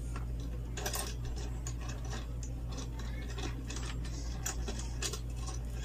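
Irregular light clicks and scrapes of a metal scissor-arm microphone boom stand being handled and adjusted at its joint and clamp, over a steady low hum.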